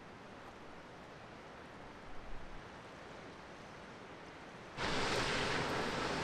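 Steady rushing of river water, faint at first, then jumping suddenly to a much louder, brighter rush of water about five seconds in.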